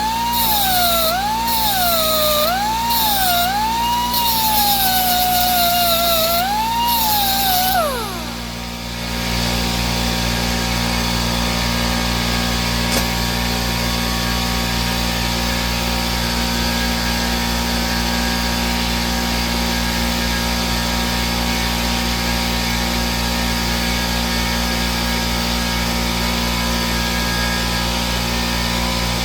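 A die grinder whines at high speed as it sharpens hedge trimmer blades. Its pitch dips and recovers about once a second as it bears on and lifts off the blade, with a gritty grinding hiss. About eight seconds in it winds down to a stop, and a steady low hum continues after it.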